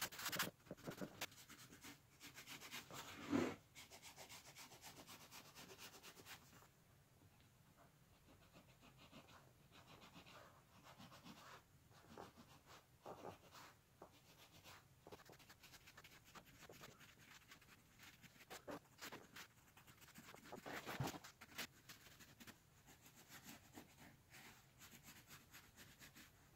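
Faint scratching of a pencil drawing lines on masking tape stretched over seat foam, with the rustle and rub of hands on the taped surface. The louder rubs come about three seconds in and again past twenty seconds.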